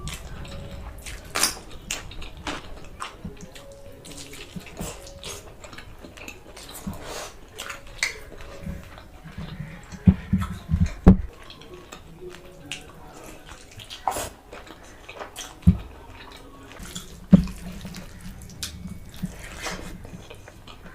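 Wet eating sounds of curry with rice and bread: chewing, lip smacks and slurps in an irregular run of short clicks, with a few louder knocks about halfway through and twice more later.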